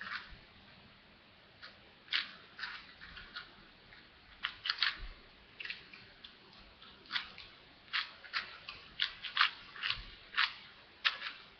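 4x4 Rubik's cube being turned by hand: irregular plastic clicks and clacks as its layers are turned, coming faster in the second half. The cube is unlubricated.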